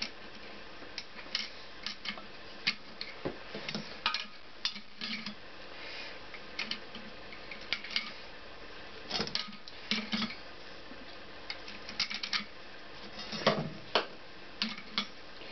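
Steel and friction clutch plates of a Honda CX500 clinking against each other and the clutch basket as they are picked up and slid into place, in irregular light metallic clicks.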